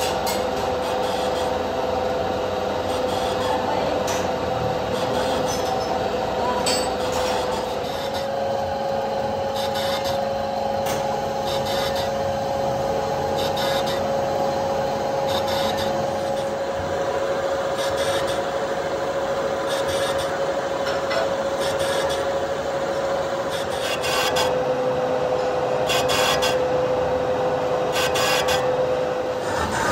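Metal being machined: a machine running with a steady tone that steps up slightly about eight seconds in and drops back near the end, over a scraping, rasping noise with occasional sharp clicks.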